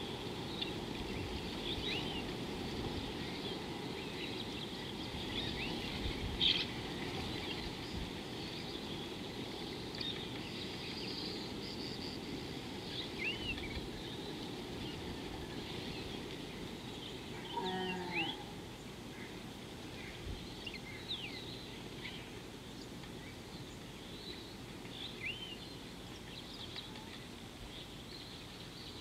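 Wild birds give short, scattered chirps and whistles over a steady low outdoor rush. About eighteen seconds in, one brief, lower pitched call sounds.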